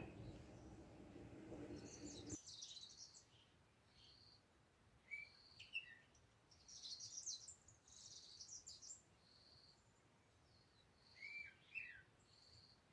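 Faint bird calls: a short high note repeating every second and a half or so, among scattered chirps and a few brief sliding whistles. A low background noise cuts off suddenly about two seconds in.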